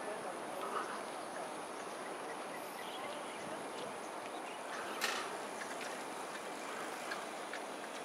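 Steady outdoor background noise with faint scattered ticks, broken by a single sharp click about five seconds in.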